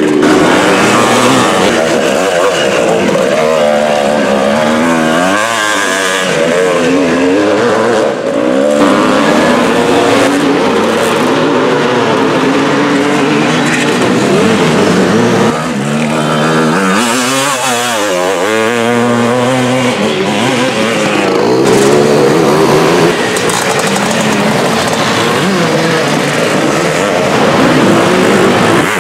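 Vintage two-stroke motocross bikes racing, their engines revving up and down hard, with several bikes often heard at once.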